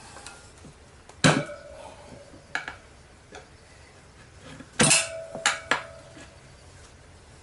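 Steel tire lever clanking against a motorcycle's wire-spoked steel rim while a tire is levered on by hand. A series of sharp metallic clanks; the loudest come about a second in and about five seconds in, each leaving a short ringing tone.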